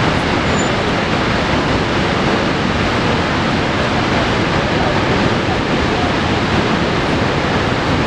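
Niagara Falls: a huge volume of water pouring over the crest and crashing into the basin below, a loud, steady, unbroken rush with deep rumble and hiss together.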